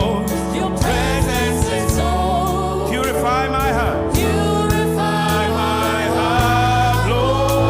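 Gospel worship song: voices singing wavering melodic runs over a band with sustained bass notes and a steady beat.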